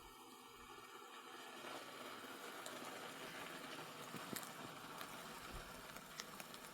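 Rain and hail falling, a steady hiss with a few scattered sharp ticks.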